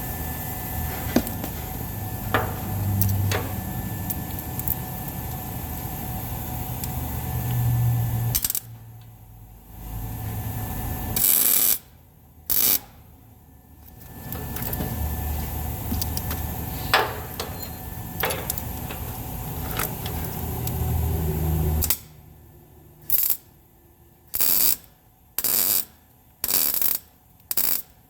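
Electric welder's arc crackling while weld is laid onto a broken exhaust stud recessed in a cylinder head, to build it up for extraction. Two long runs of several seconds each, then a string of short bursts about one a second near the end.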